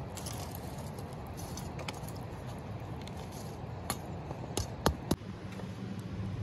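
Metal tongs scraping and clinking against a lidded metal bread pan as smouldering dung embers are cleared off it. A few sharp clinks come about four to five seconds in, over a steady low rush.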